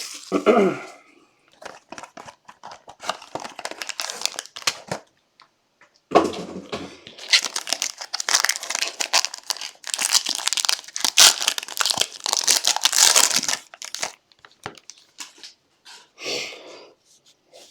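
Plastic wrapping on a box of baseball cards being torn open and crinkled: a few seconds of short crinkles, then a long stretch of continuous crinkling and tearing that stops near the end.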